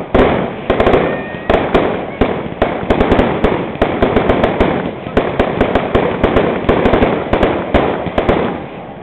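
Fireworks display: a rapid, continuous barrage of sharp bangs and crackles, several a second, over a steady rushing hiss. It thins out near the end.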